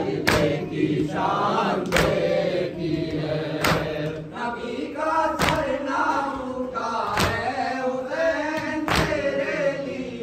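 Group of men chanting a noha (Urdu lament) in unison, with a sharp unison chest-beating slap (matam) six times, evenly about every second and three-quarters, marking the rhythm.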